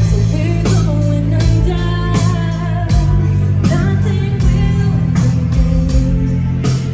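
Symphonic metal band playing live at full volume: a sung melody over distorted guitars, heavy bass and steady drum hits.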